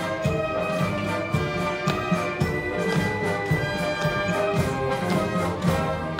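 Military marching band playing a march: brass instruments over a steady drum beat.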